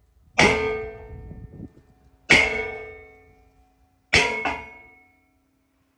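Heavy metal blows on an old steel safe, three strikes about two seconds apart, the last a quick double hit, each ringing on as a clang.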